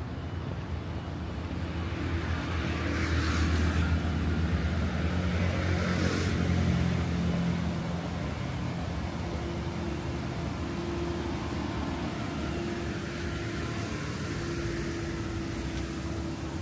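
Street traffic: a motor vehicle passes, its engine rumble and tyre noise swelling over a few seconds and then fading, followed by a steady low hum of traffic.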